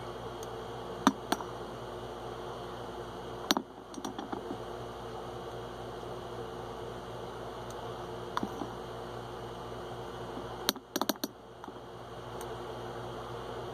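Steady background hiss with a faint hum, broken by a few clusters of sharp small clicks and taps. These come from a vape tank and e-liquid bottle being handled while the tank is filled through its top-fill port.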